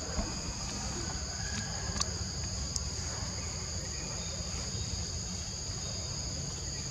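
Steady high-pitched drone of forest insects, two even tones held without a break, over a low steady rumble, with a sharp click about two seconds in.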